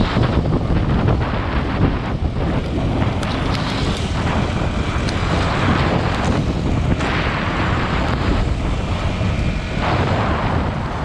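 Yamaha WR155R's single-cylinder four-stroke engine running under way, with wind buffeting the microphone in swells.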